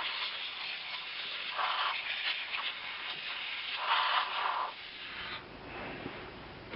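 A few short blasts of compressed air hissing as dust is blown out of a bench vise's swivel base; the hiss fades out about five seconds in.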